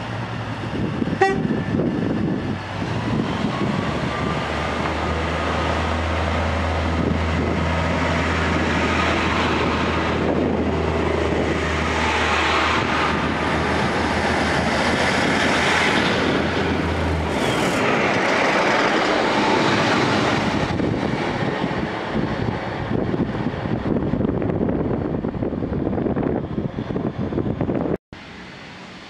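Diesel multiple unit train passing close along a station platform: a short horn toot about a second in, then the diesel engine's steady low drone and the rumble of the carriages over the rails. The drone stops about halfway through, the rumble carries on, and near the end it gives way to much quieter street noise.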